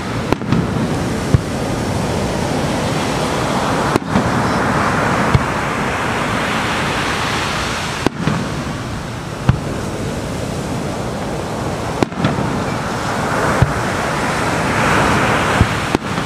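Aerial firework shells bursting with about eight sharp bangs, a second to a few seconds apart, over the steady wash of waves breaking on a shore, which swells louder twice.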